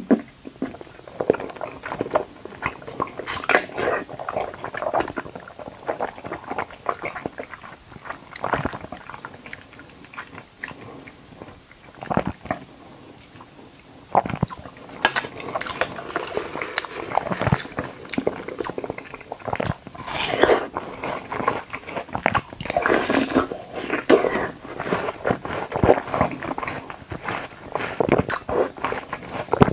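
Close-miked ASMR eating sounds: a person biting and chewing watermelon and konjac jelly. The bites and chews come in irregular bursts, with a quieter stretch a third of the way in.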